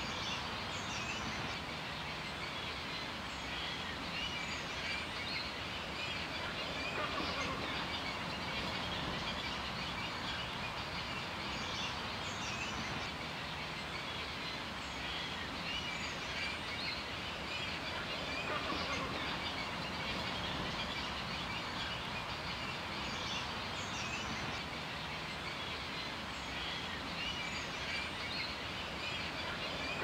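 Outdoor ambience: a steady background hiss with birds chirping here and there.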